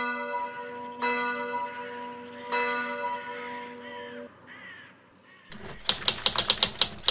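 A church bell tolls three times, ringing on until it cuts off abruptly after about four seconds, with crows cawing. About five and a half seconds in, typewriter keys start clacking quickly, six or seven strikes a second.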